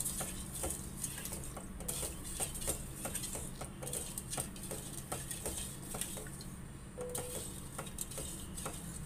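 A wooden spatula stirring sugar and water in a steel pot, knocking and scraping against the pot's bottom and sides in irregular clicks, a few a second, while the sugar dissolves into syrup.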